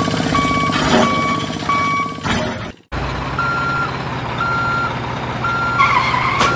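Truck reversing alarm beeping steadily over a running diesel truck engine. About two and a half seconds in there is a short cut to silence, after which the beeps are higher-pitched and slower, about one a second. A brief wavering tone sounds near the end.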